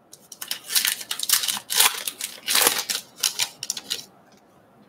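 A baseball card pack's wrapper torn open and crinkled by hand: a run of sharp crackling rips that stops about four seconds in.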